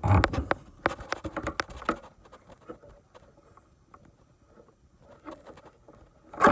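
Cyclone Rake deck attachment being fitted onto its mounting brackets on the mower deck: a flurry of knocks and rattles in the first two seconds, a few light taps after that, and a sharp knock near the end.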